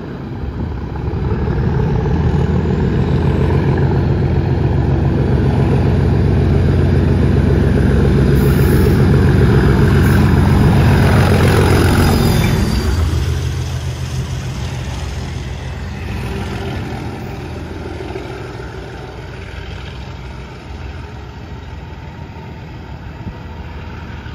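Class 37 diesel locomotive's English Electric V12 engine passing under power with smoke at the exhaust. Its loud, steady beat builds to a peak about ten seconds in and falls away after about thirteen seconds, leaving the lower rumble of the tank wagons it hauls rolling past.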